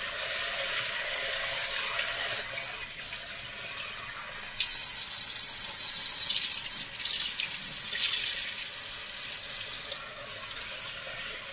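Kitchen tap running into a stainless steel pot while rice is rinsed and swirled by hand. The splashing gets markedly louder from about four and a half seconds in until about ten seconds in.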